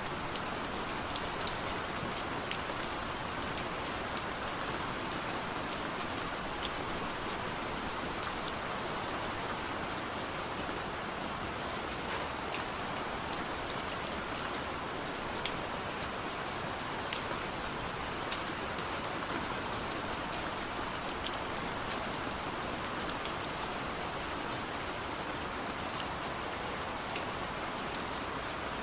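Steady rain falling, a constant hiss with scattered individual drops ticking sharply on a surface.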